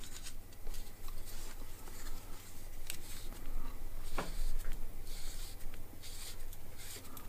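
Threaded-rod bearing press being tightened by hand on a bike suspension rocker link to press out a bearing: quiet scraping and rubbing from the turning threads and tool, with two small clicks about three and four seconds in.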